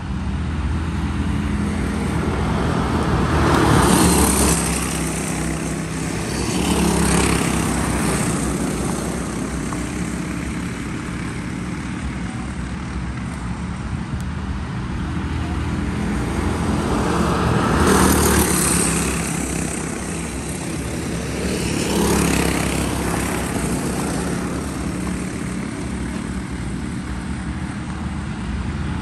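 Small single-cylinder engines of Predator-class racing karts running around the track, a steady buzzing drone that swells four times as karts pass nearer, at about 4, 7, 18 and 22 seconds in.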